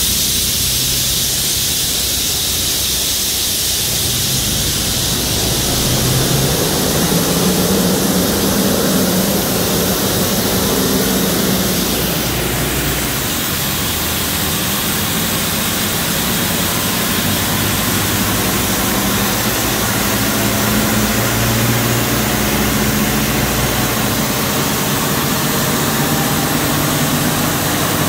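Supercharged Toyota Tacoma V6 running on a chassis dyno, its tyres spinning the rollers. A loud, steady rush of noise sits over the engine note, which steps up and down in pitch a few times rather than sweeping through a full rev climb.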